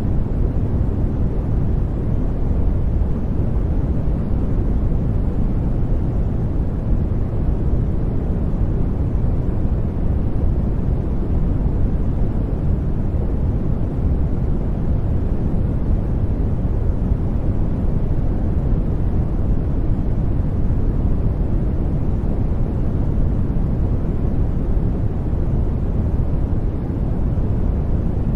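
Brown noise: a steady, even, deep rumbling hiss, strongest in the bass and fading toward the treble, unchanging throughout.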